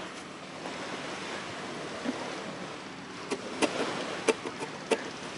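Surf and wind hiss steadily. About three seconds in, a ukulele starts being strummed in short, sharp strokes, roughly two a second.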